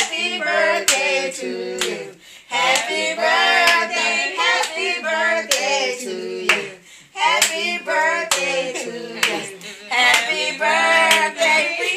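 Women singing in a small room, with held, wavering notes, while hands clap in an uneven beat.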